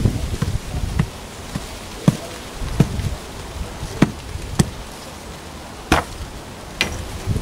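Shovel driven repeatedly into the bottom of a planting hole to tamp the soil, making about seven dull, irregularly spaced thuds. The base is being packed solid so the tree will not sink later.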